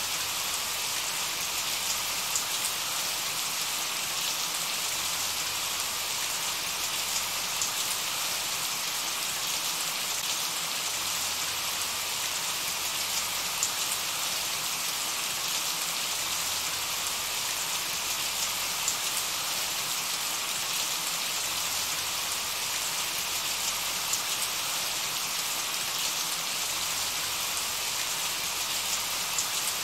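Steady, even rain with no music, and a few closer drops ticking out above the hiss.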